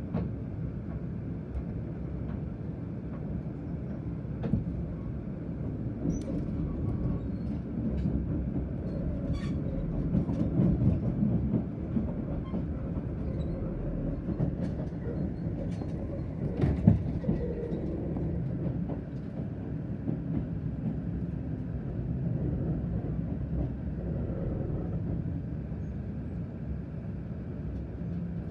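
Kintetsu limited express train running, heard from inside the passenger cabin: a steady low rumble with scattered clicks from the rails. One sharp, louder clack comes a little past the middle.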